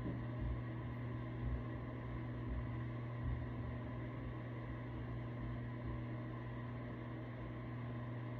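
A steady low hum with a faint hiss that does not change.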